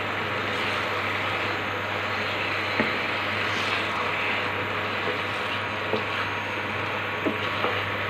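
Wooden spatula stirring thick, bubbling fenugreek halwa in a non-stick pan, with a steady sizzle over a low hum and a few sharp knocks of the spatula against the pan. The halwa has thickened to the stage where it leaves the sides of the pan.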